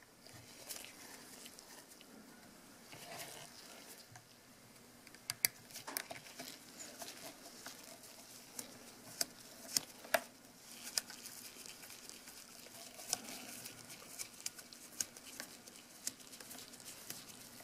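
Faint, scattered sharp clicks and light scraping of a small screwdriver working the tiny screws out of a Canon EOS 6D's back panel, with gloved hands handling the camera body.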